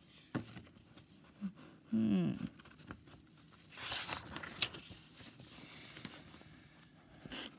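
Pages of a picture book being turned and handled: paper rustling with a few soft clicks, and a longer rustle about four seconds in as a hand brushes close to the recording phone. A brief voiced murmur about two seconds in.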